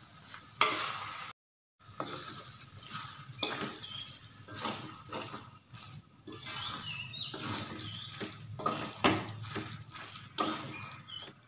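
Wooden spatula stirring and tossing fried flat rice noodles in an aluminium wok, scraping and knocking against the metal over a steady sizzle. The sound cuts out briefly about a second and a half in.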